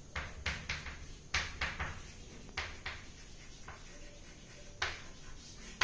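Chalk writing on a chalkboard: a run of irregular sharp taps and short scratches as the chalk strikes and drags across the board.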